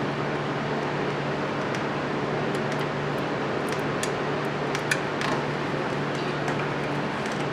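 A steady mechanical hum runs throughout. Over it come a few light metallic clicks and clinks about halfway through, from hand work on the exhaust manifold heat shield.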